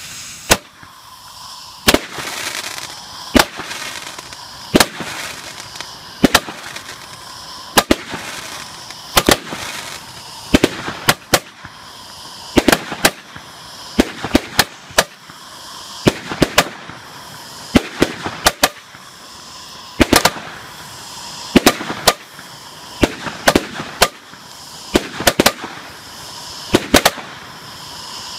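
Orion 'Black Spider' 36-shot rocket firework battery firing: sharp reports about every second and a half, several in quick pairs, with a hiss between them.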